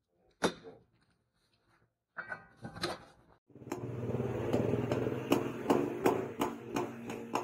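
Hand hammer striking a hot leaf-spring steel machete blade on an anvil: one sharp blow about half a second in, a few more around two to three seconds in, then regular blows about three a second over a steady hum from about halfway through.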